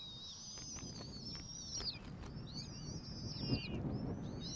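High, thin bird calls, wavering and repeated again and again, over a low rumble that swells briefly about three and a half seconds in.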